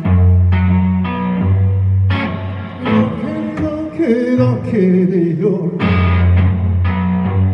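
A rock band playing: guitar chords over a strong bass line, with a singing voice holding a wavering note in the middle.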